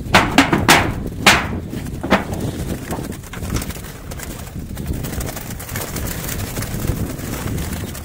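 Pigeons in a wire-mesh aviary: a handful of sharp, irregular clattering sounds in the first two seconds, then a steady low background noise.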